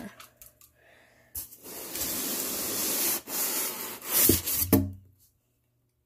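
Cardboard scraping and rustling for about three seconds as the fan's shipping box is handled and pulled open, followed by a few dull thumps.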